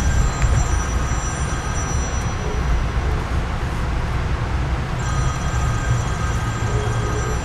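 Amtrak passenger train in motion, heard from aboard: a steady low rumble of the train running on the rails. Thin high-pitched tones come in twice, for about two seconds at the start and again near the end.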